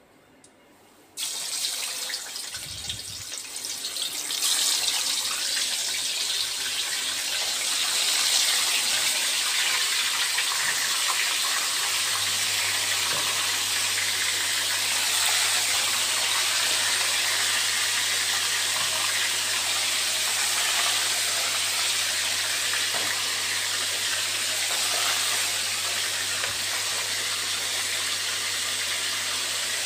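Marinated chicken pieces deep-frying in a pan of hot oil: a steady sizzle that starts suddenly about a second in and grows louder a few seconds later.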